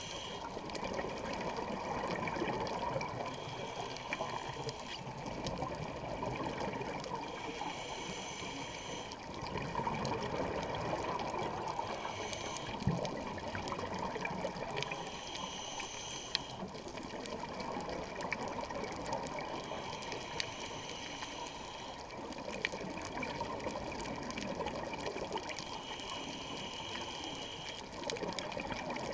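Scuba breathing through a regulator underwater: a hissing inhalation about every four seconds, alternating with rushing, gurgling exhaled bubbles.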